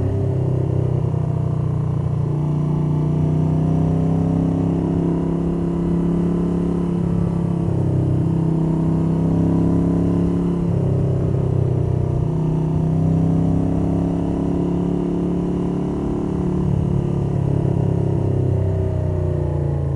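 The air-cooled transverse V-twin of a 1982 Moto Guzzi 850 Le Mans III, fitted with Lafranconi Riservato Competizioni exhausts and K&N cone filters, running under way. Its revs rise and fall as the throttle is worked, easing off briefly a few times. It is heard through a jacket-pocket microphone wrapped in cotton cloth, with wind noise and some valvetrain clatter.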